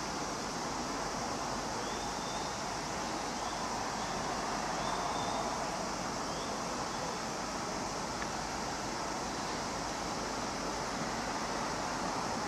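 Steady distant rail-yard noise, a level hiss and low rumble, as a shunting vehicle creeps along the track; a few faint short chirps sound a couple of seconds in.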